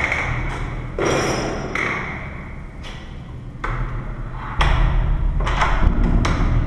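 A door with a newly fitted lever lockset being pushed shut and tested. The metal latch bolt clicks and knocks against the strike several times, with a brief metallic ring about a second in, as the door fails to latch.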